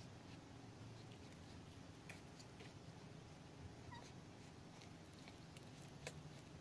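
Near silence with faint wet clicks of a mother cat licking her newborn kitten clean, and one brief, faint high squeak from the newborn kitten about four seconds in.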